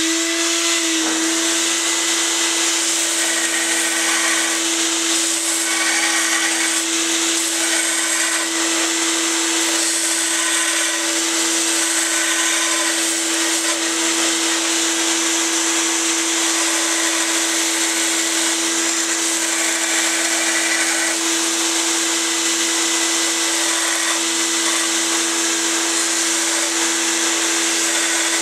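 Belt sander and shop vacuum running together, a steady loud whine over a hiss that settles at full speed in the first moment. A knife blank is pressed against the sanding belt now and then to grind its profile, adding short bursts of grinding.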